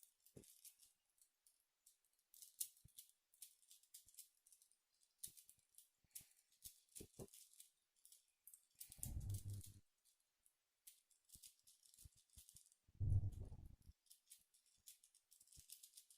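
Faint, rapid clicking and rattling of a tiny 2 cm 3x3 puzzle cube being turned quickly in a speedsolve. Twice, about nine and thirteen seconds in, a short low thud or hum stands out.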